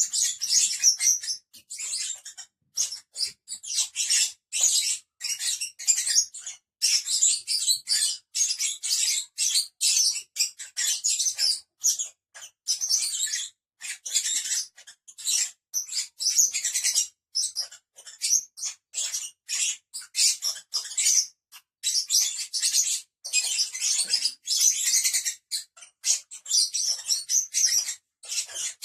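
Pet lovebirds chattering, with high-pitched chirps coming in quick, irregular bursts and only brief pauses between them.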